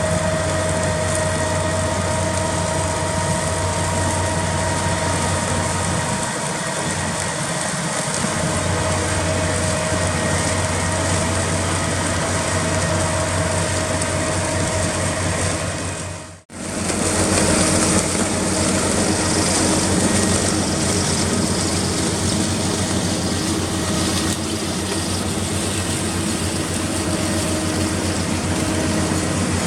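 Heavy farm machinery running steadily, a constant engine and machine hum with a held whine. The sound cuts out for an instant about halfway through and comes back with a lower-pitched whine.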